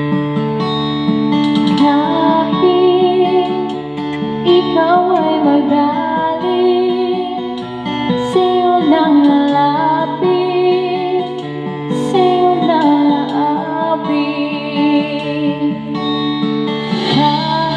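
Pop ballad backing track with guitar, and a woman singing a gliding melody with vibrato over it.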